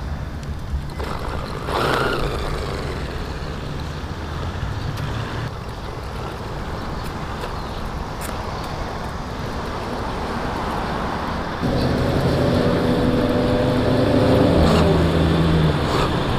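Steady hum of motor-vehicle engines and road traffic. About twelve seconds in it suddenly gets louder, with a nearer engine idling.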